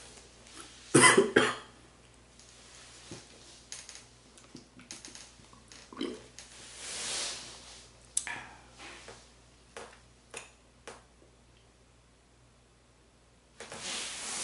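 Handling sounds of a plastic jug and a canister of sweetened iced tea mix close to the microphone. A loud cluster of knocks and clatter comes about a second in, followed by scattered taps and clicks and a short hiss about seven seconds in.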